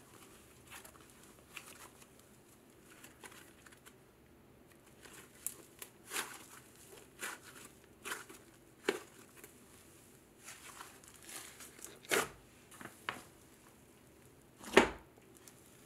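Hands squeezing, stretching and pulling apart a fluffy icy–cloud hybrid slime, giving scattered soft crackles and tearing sounds. The loudest crackles come about twelve seconds in and near the end.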